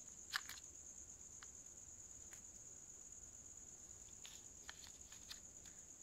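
Faint plastic clicks and taps as Samsung Galaxy Buds earbuds are handled and set into their charging case, the sharpest double click about half a second in and a cluster of lighter ones near the end. A faint steady high-pitched tone runs underneath.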